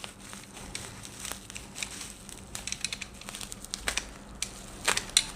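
Plastic packaging crinkling and rustling as a small packet is opened by hand, with irregular sharp clicks, the loudest a little before the end.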